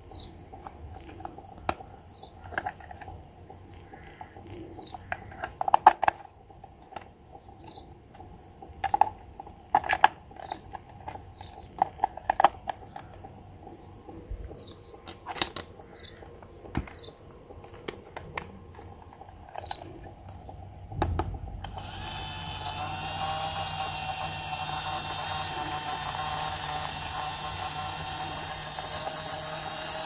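Plastic clicks and knocks as a battery-powered toy iron is handled and its battery cover opened, with short bird chirps behind. A little over two-thirds of the way in, the toy's small electric motor switches on and runs steadily with a hum and hiss.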